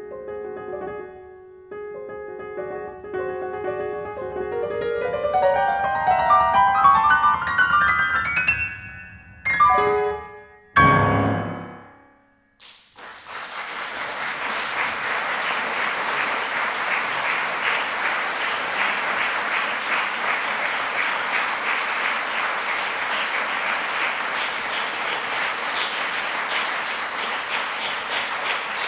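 Grand piano finishing a classical piece: a run of notes climbing in pitch, then two loud closing chords about ten seconds in. After a second of silence, an audience starts steady applause.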